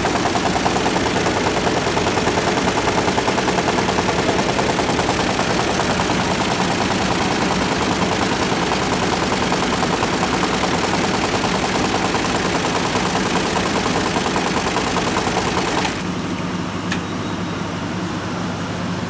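Computer embroidery machine stitching at speed: a loud, steady, very fast mechanical rattle of needle strokes. Near the end the clatter drops off abruptly to a quieter running hum with a single click.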